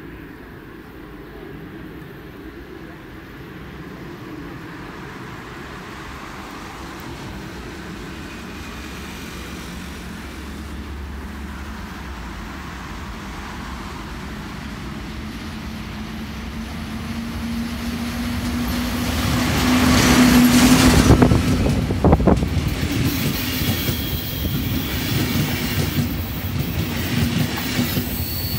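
Electric locomotive-hauled passenger train approaching and passing close by: a steady hum and rumble that grows louder for about twenty seconds and peaks as the red electric locomotive goes by. After that the coaches roll past with clattering wheels and a thin high squeal.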